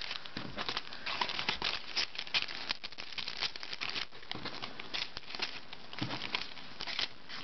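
Clear plastic treat bag crinkling, its contents of candy, a lollipop and a pencil rattling inside as it is shaken so they settle to the bottom; a dense run of small crackles and clicks.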